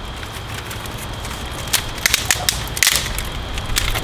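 Dry cedar kindling twigs snapping and crackling as they are broken up by hand, with a few sharp cracks in the second half.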